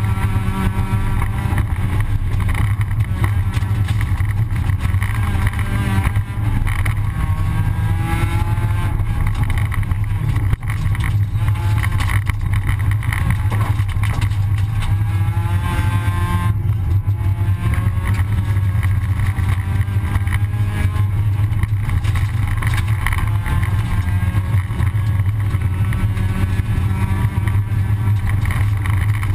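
Rally car engine heard from inside the cabin, driven hard on a gravel stage. Its revs climb in long pulls and drop suddenly about halfway through, over a steady rumble of tyre and gravel noise.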